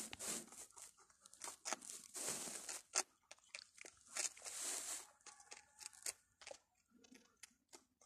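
Young rabbits chewing and crunching pieces of bread from a bowl: quick crisp bites with two longer rasping stretches, thinning out near the end.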